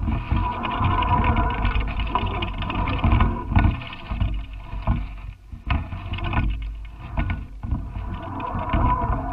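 Muffled rumbling and buffeting on the microphone of a GoPro hanging in a kite-suspended camera cradle, with scattered knocks as the cradle swings.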